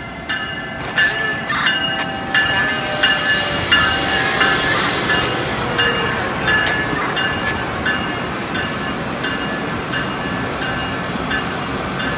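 Amtrak passenger train hauled by an ACS-64 electric locomotive passing close by, a steady rush of wheel and running noise with a burst of high hiss as the locomotive goes past. Through it a railroad crossing bell dings evenly, about two to three strikes a second, and there is one sharp clank a little past the middle.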